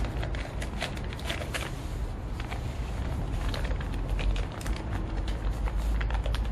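Plastic wrapping and fabric rustling and crinkling in irregular bursts as gloved hands stuff items into a cloth tool pouch, over a steady low rumble.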